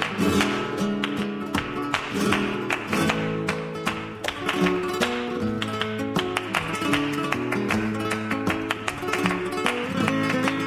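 Flamenco-style Spanish guitar music, plucked and strummed with many quick sharp strokes.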